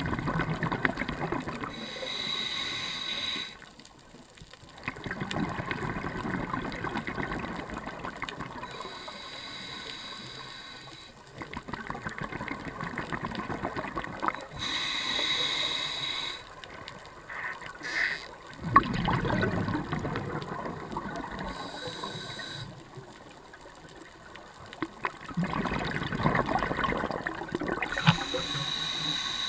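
Scuba diver breathing underwater through a regulator: a short hissing inhale, then a longer burst of bubbling exhaust, about five breaths in a slow, even rhythm.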